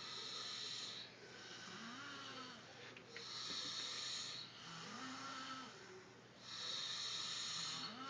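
People snoring in their sleep. A low pitched snore alternates with a hissing breath, and each comes back about every three seconds.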